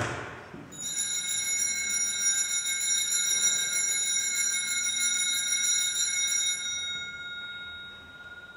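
Altar bells (sanctus bells) shaken repeatedly at the elevation during Mass: a bright, shimmering ringing that starts about a second in, goes on for about six seconds, then dies away. A knock comes just before, at the very start.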